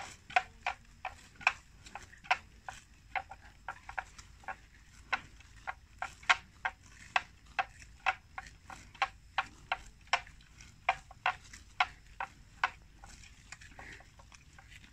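Water buffalo grazing close by, cropping grass: a steady run of short, crisp rips as the grass is torn off, about two to three a second. They die away near the end.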